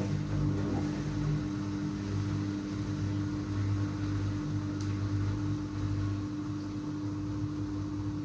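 Samsung WW90CGC04DAB front-loading washing machine running a quick cycle: a steady low motor hum with a faint drum swish.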